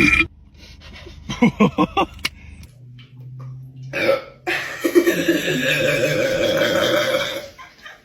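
A person burping: a quick string of about five short hiccup-like burps about a second and a half in, then a long drawn-out burp lasting a couple of seconds.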